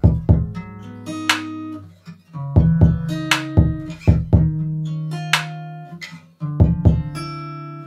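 Background music: plucked guitar notes over a bass line, in short phrases with brief pauses between them.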